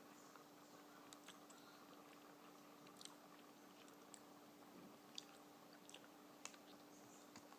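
Faint chewing of a mouthful of peanut butter and honey eaten off a spoon, with scattered small clicks, over a steady low hum.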